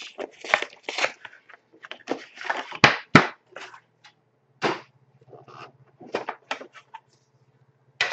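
Plastic shrink wrap being torn and crumpled off a card box, an irregular run of crinkling crackles with two sharper cracks about three seconds in.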